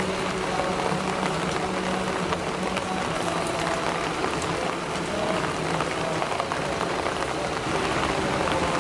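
Steady rain falling on lotus leaves: a dense, even hiss of drops with scattered sharper ticks.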